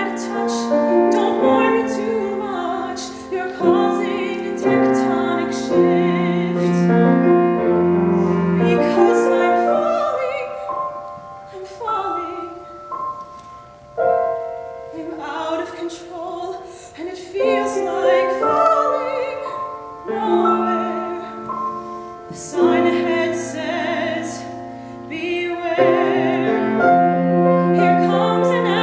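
A woman singing a musical-theatre ballad in a classical voice, holding notes with vibrato, accompanied on a grand piano. The music softens for a few seconds around the middle, then swells again near the end.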